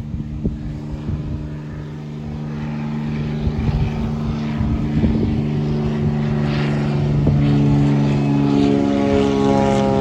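Airbus A350-941's Rolls-Royce Trent XWB turbofans running at high power with a steady multi-tone whine and rumble, growing steadily louder as the jet approaches on its takeoff. A few brief knocks sound over it.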